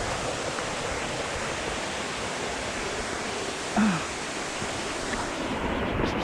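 Steady rushing of a waterfall. A brief louder sound with a falling pitch comes about two-thirds of the way through.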